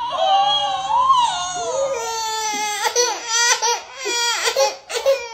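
Baby crying: a long wavering wail, then shorter broken sobs in the second half.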